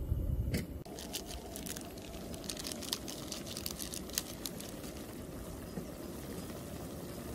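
Cabbage and pork sizzling in a frying pan, with metal tongs clicking and scraping against the pan as the food is turned, the clicks mostly in the first half.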